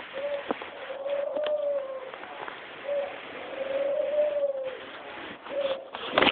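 A pigeon cooing: a short note followed by a long, level, gently arching note, three times over, with faint scattered clicks.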